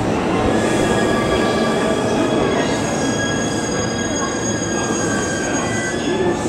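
Wheels of an E231-series electric multiple unit squealing on curved track and points, several high steady squeal tones held over the rolling rumble of the train.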